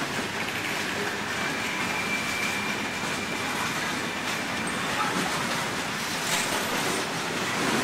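Freight train cars rolling past close by: a steady rumble and rattle of wheels on rail. A thin, high wheel squeal rises briefly about two seconds in.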